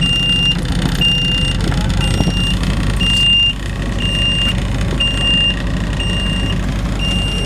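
Tour boat's engine running with a steady low drone. Over it an electronic beeper sounds a high, even beep about once a second, each beep about half a second long.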